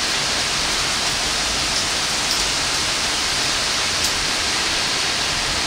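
Steady heavy rain: an even hiss of falling water, with a few single drop ticks.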